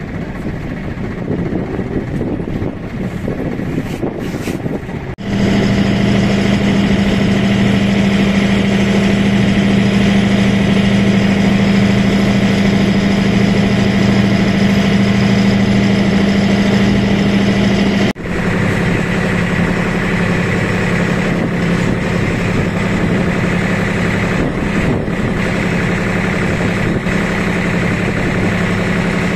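Motorboat engine running steadily with a low hum, heard from aboard. In the first few seconds wind on the microphone is mixed in. The sound changes abruptly twice, about five seconds in and again after about eighteen seconds.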